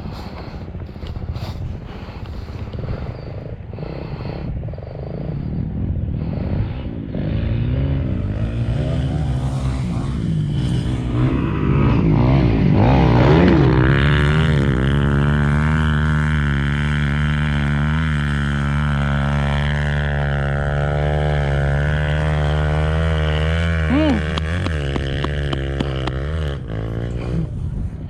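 Off-road motorcycle engine accelerating hard over the first half and then holding steady at high revs, easing off near the end.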